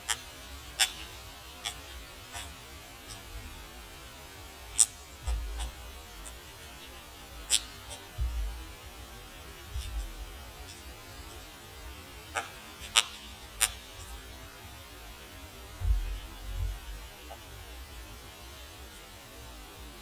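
Sharp, irregularly spaced clicks of a white-backed woodpecker's bill striking rotten birch wood, about eight in all, over a steady low hum, with a few dull low thuds between them.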